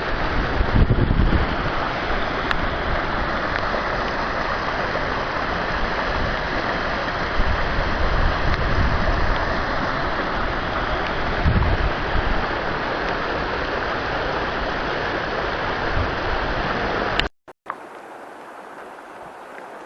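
Steady, loud rush of water in heavy rain, with no pauses. About three seconds before the end it cuts off abruptly and gives way to a much quieter, even hiss.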